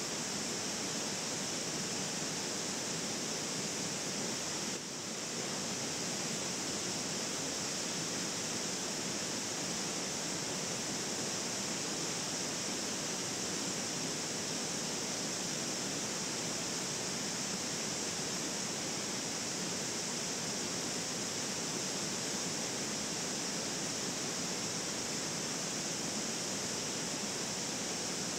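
Steady, even rush of river water running over rocks below a waterfall, with one brief dip in level about five seconds in.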